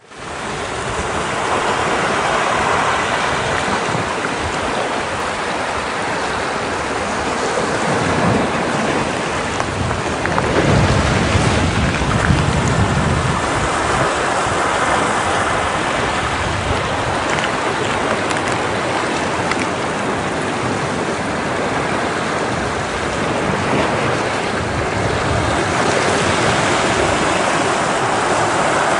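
Ocean waves breaking against rocks: a steady wash of surf that fades in at the start and swells with heavier breakers about ten seconds in.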